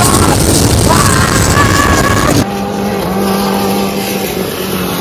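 Longtail racing boat's 3-litre turbo-diesel car engine running flat out, loud under rushing wind and spray noise with a high whistle above it. About halfway through it cuts to a steadier, quieter engine drone of a boat speeding past.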